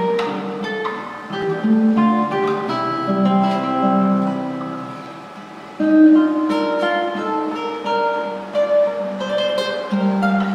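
Solo nylon-string classical guitar playing single notes and chords. The sound fades away about five seconds in, and a strong chord comes in again near six seconds.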